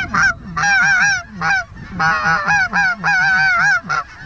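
Snow goose call blown hard by mouth: a rapid run of short, high, wavering yelps, about three or four a second, imitating snow geese to draw in a flock.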